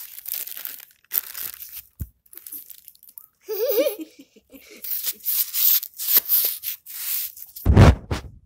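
Thin clear plastic bag crinkling and rustling in spells as a cat with its head stuck inside it moves and a hand handles the bag. A short wavering voice-like sound comes about three and a half seconds in, and a loud low rumble near the end.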